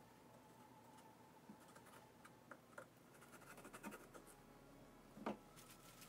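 Faint scratching strokes of a marker drawing the eyes onto a pumpkin's skin, with a sharper tap about five seconds in.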